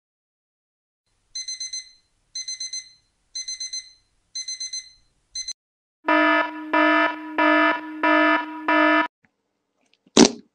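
Digital alarm-clock beeping: high beeps in quick groups of four, repeating about once a second, five times. Then a lower, fuller electronic alarm tone sounds in five pulses, and a short burst of noise comes near the end.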